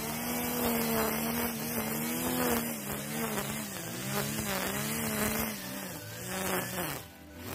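Kawasaki 45 cc two-stroke brush cutter with a nylon-line head running at high throttle as the line cuts thick grass. It runs steady at first, then its pitch wavers up and down as the line meets the grass. Near the end the throttle eases off briefly and then picks up again.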